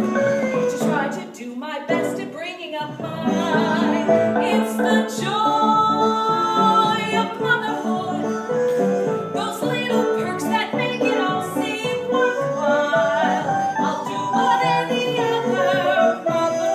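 Musical-theatre song: a singing voice with wavering vibrato over instrumental accompaniment.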